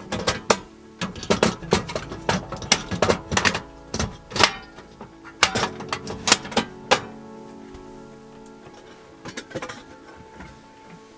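Background music with steady tones, over a run of sharp irregular knocks and clicks for about the first seven seconds and a few more near the end.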